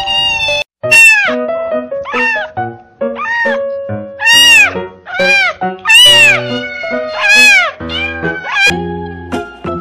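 Young kittens mewing, about a dozen short high-pitched cries that each rise and fall in pitch, roughly one a second.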